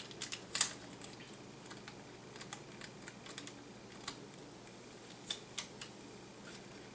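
Sparse small clicks and taps, about a dozen at irregular spacing, from hands and a small tool working the antenna cables and connectors inside a tablet PC; the loudest come near the start and around five seconds in.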